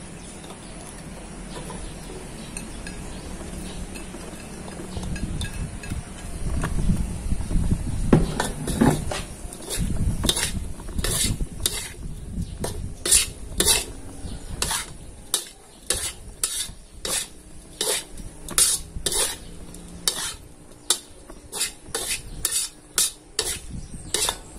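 Metal spatula stirring and scraping chili sambal with petai beans in a steel wok over sizzling frying. From about eight seconds in, the spatula strikes and scrapes against the wok in sharp strokes, roughly two a second.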